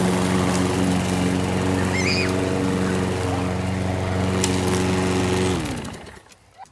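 Lawn mower engine running steadily, then shut off about five and a half seconds in, its pitch sinking as it spins down to a stop.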